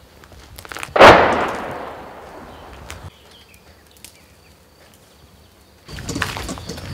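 A single artillery blast about a second in: a sharp crack followed by a long rumble that dies away over about two seconds. Near the end, footsteps on rubble and gravel.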